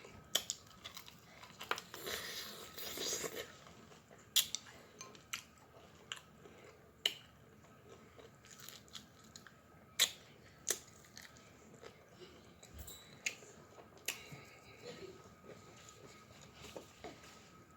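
Close-miked chewing and lip-smacking while eating sauced chicken wings: sharp wet smacks at irregular intervals over quieter chewing.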